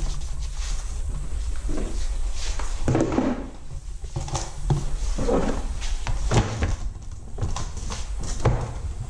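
Metal snake tongs and hook knocking and scraping against a plastic holding container as a black mamba is lowered in and the lid is fitted: a string of dull knocks, the loudest near the end, over a steady low rumble.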